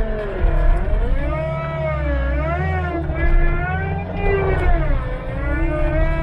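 John Deere 324E skid steer working: a low diesel engine rumble under a high whine that wavers up and down in pitch about once a second.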